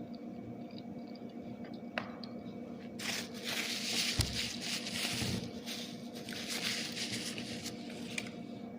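Biting into and chewing crispy fried chicken close to the microphone, with crunching from about three seconds in, over a steady low hum.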